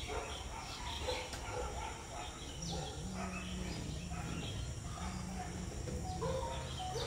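Quiet outdoor ambience: scattered faint bird chirps over a steady insect buzz. A low hum comes in about three seconds in.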